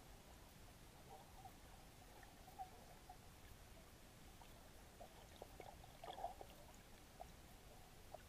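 Near silence underwater: a faint low murmur with scattered soft clicks and pops, a short cluster of them about six seconds in.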